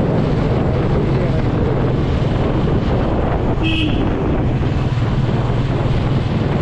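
Royal Enfield Classic 350's single-cylinder engine running at road speed, with wind rushing over the camera microphone. A short high beep sounds near the middle.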